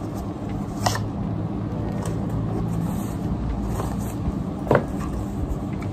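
A steady low hum, with a couple of short sharp clicks and rustles from a wireless mouse's cardboard box being handled, about a second in and again near the end.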